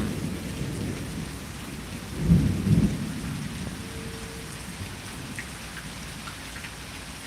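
Steady rain falling through a thunderstorm, with a low rumble of thunder about two seconds in that swells twice over roughly a second before fading back into the rain.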